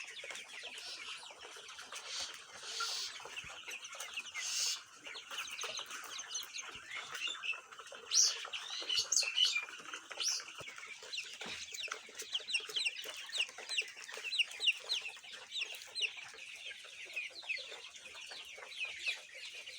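A large flock of about a thousand 30-day-old colour bird chickens cheeping and clucking together. Many short, high calls overlap, growing thicker in the second half.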